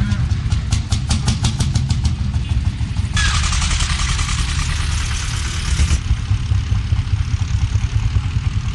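Old tractor engines running, heard in segments cut together. A steady knocking beat is heard over the low engine sound for the first couple of seconds, and a bright hiss joins in for about three seconds in the middle.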